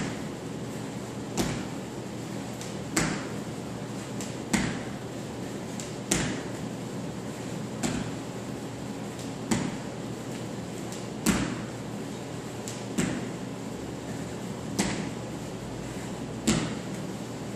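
Feet landing on a wooden floor in repeated jumps with a medicine ball held at the chest: about ten thuds, one every second and a half or so, over a steady low hum.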